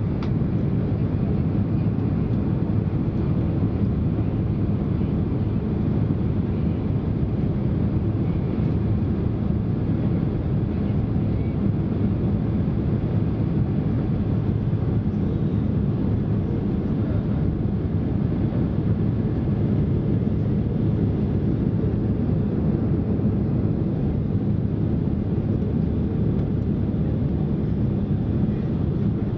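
Steady cabin noise in a Boeing 767 airliner descending through cloud to land: an even, low rush of engines and airflow.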